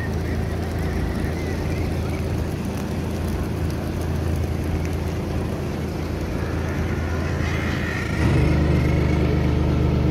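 Tour boat's engine running steadily, with a low even drone that gets louder about eight seconds in.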